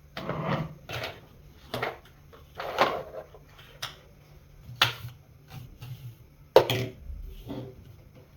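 Parts of a Bosch dry vacuum cleaner being handled and fitted together: irregular knocks and rustles about once a second, with a couple of sharp clicks.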